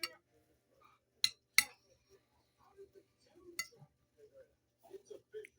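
Metal spoon clinking against a plate of food three times, sharp and brief, about a second in, just after, and again near the middle.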